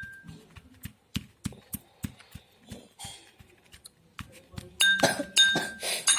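A utensil mashing and pounding ginger, turmeric and black pepper with honey into a paste in a small vessel: short knocks about three a second, with louder ringing clinks against the vessel about five seconds in.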